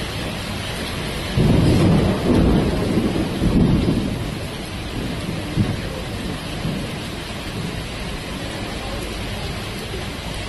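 Heavy rain falling steadily, with a loud low rumble of thunder starting about one and a half seconds in and lasting a couple of seconds, then dying away.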